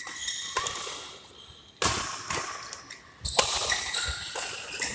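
Badminton rackets striking the shuttlecock in a rally: a run of sharp hits, roughly half a second to a second apart, each ringing on in the echo of a large hall.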